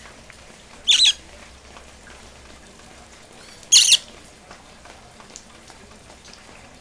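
A pet parrot squawking twice, two short harsh high calls about three seconds apart, over a faint steady hiss of rain.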